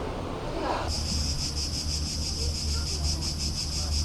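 Cicadas buzzing in a dense, steady, finely pulsing chorus that starts abruptly about a second in, over a low background rumble.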